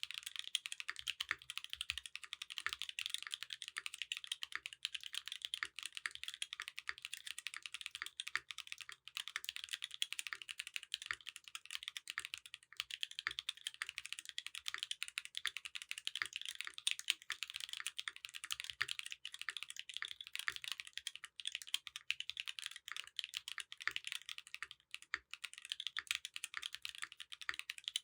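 Fast, continuous typing on a Candybar mechanical keyboard with tactile Durock Lupine switches, GMK Amethyst keycaps and an aluminium plate, many keystrokes a second. The PCB assembly is bedded on high-density neoprene to cut down case ping.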